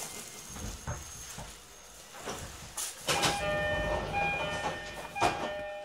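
Sounds around a stopped JR E231-series commuter train at a station: a few sharp knocks and clunks. From about three seconds in, several steady electronic tones sound together, then the sound fades near the end.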